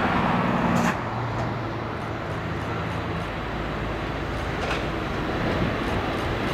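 Steady jet noise from a Boeing 747-400's four engines as it comes in to land and touches down in a crosswind. The noise drops a little about a second in, then stays even.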